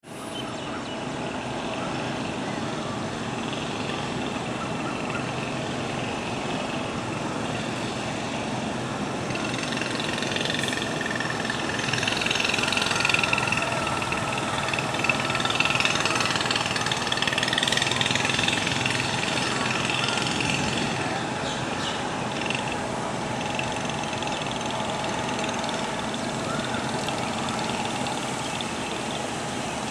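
Steady outdoor city background noise: an even hiss over a low engine-like hum, getting a little louder in the middle, where faint wavering higher tones come and go.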